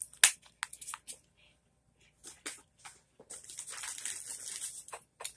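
Plastic wax-melt containers handled: a few sharp clicks and taps, then nearly two seconds of crinkling, rustling packaging.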